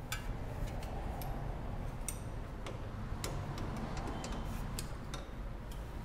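Irregular small metallic clicks of a spanner working the bleed nut on a motorcycle's rear disc brake caliper, tightening it while bleeding air out of the brake, over a low steady hum.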